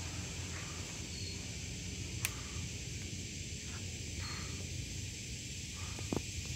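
Steady high insect chorus of a marsh, with one sharp click a little over two seconds in and a few faint short chirps.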